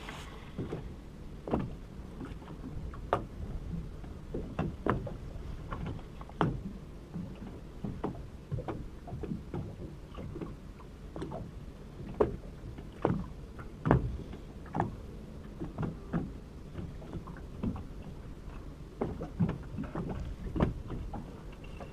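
Small motorboat's hull knocking and slapping as water hits it, with irregular knocks about once a second over a low steady rumble.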